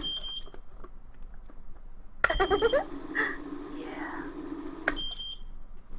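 FrSky Taranis Q X7 radio transmitter playing an alarm-like sound track through its built-in speaker as its arm-switch alert: a steady buzz with a falling sweep, opened and closed by a short high beep. It sounds once about two seconds in, after a beep right at the start.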